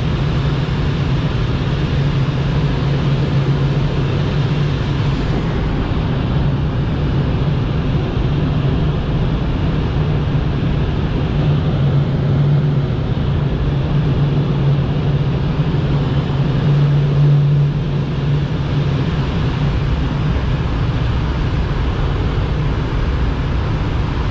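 Steady rush of airflow around a glider's cockpit and canopy in engineless gliding flight, with a low hum that swells briefly about 17 seconds in.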